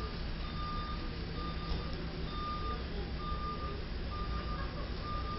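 Truck reversing alarm beeping steadily, about one beep a second, over the low steady rumble of heavy truck engines.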